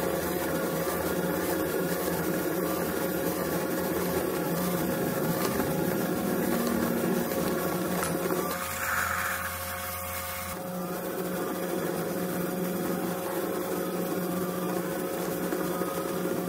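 Small metal lathe running steadily while a 10 mm twist drill in the tailstock bores into a spinning aluminium workpiece, a constant machine hum. The hum changes character for about two seconds roughly nine seconds in, then settles back.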